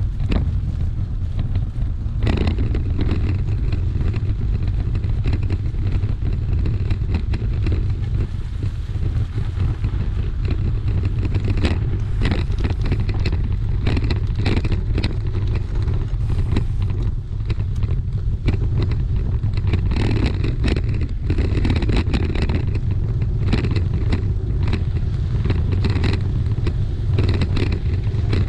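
Wind buffeting a GoPro Hero8's microphone as a steady low rumble, with frequent irregular clicks and rattles from a bicycle jolting along a bumpy dirt track.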